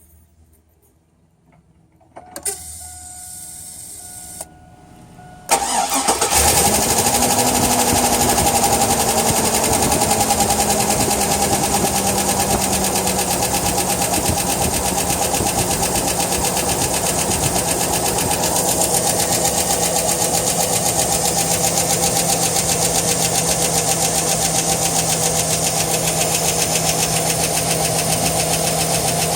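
Cold start of a 2002 Chevrolet Tahoe's 5.3L V8: a steady hum for about two seconds, then the starter cranks briefly and the engine catches about six seconds in. The fast idle sinks in pitch over the following several seconds and then holds steady. The engine carries a noise that the owner reports only when it is cold and cannot identify.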